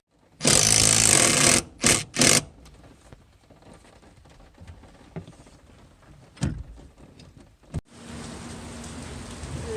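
Three bursts of loud hissing: one about a second long, then two short ones, followed by a few faint clicks. From about eight seconds a steady rushing noise with a faint low hum sets in.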